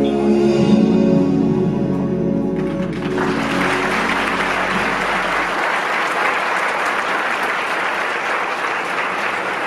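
A live band's final held chord rings out and dies away, and audience applause breaks out about three seconds in and goes on steadily.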